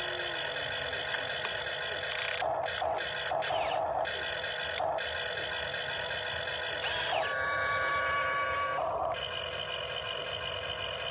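Electric motors and gearboxes of a Huina 1592 RC excavator whining steadily as the arm digs into sand and the upper body slews round. The whine is broken by several short scraping bursts in the first half and shifts in pitch a little past the middle.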